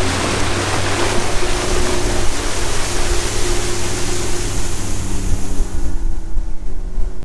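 Boat motor running steadily under way, with heavy wind and water rush over it. The sound cuts off abruptly at the end.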